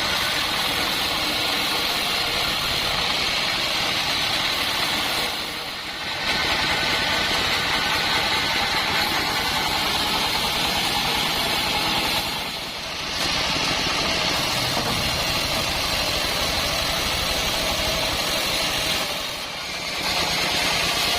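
Band sawmill running with a loud, steady mechanical noise. The noise drops briefly three times, about every six and a half seconds.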